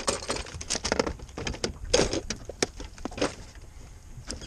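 Irregular knocks and thumps against a boat: a freshly landed fish flopping and being handled in the boat.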